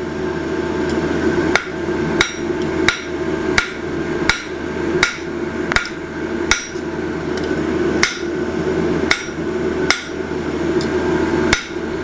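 Hand hammer striking hot steel on an anvil, single ringing blows about every three-quarters of a second, thinning out extra thickness in a forged vine. A steady rushing hum runs underneath.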